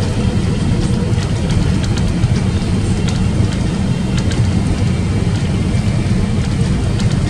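Cabin noise of a Boeing 777-300ER on final approach: a steady low rumble of engines and airflow, with a faint steady hum and light clicks and rattles now and then.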